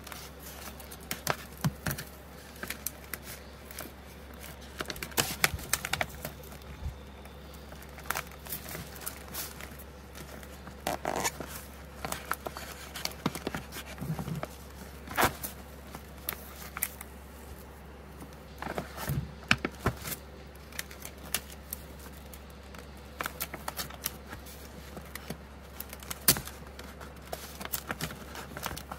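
A yellow paper mailing envelope handled, folded and pressed by hand: irregular crinkling with scattered sharp crackles and taps, over a steady low hum.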